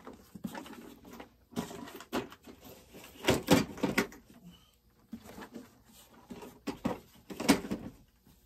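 Irregular knocks, clatter and rustling of boxes and small parts being handled while rummaging through chainsaw parts. The loudest clatters come about three and a half and seven and a half seconds in.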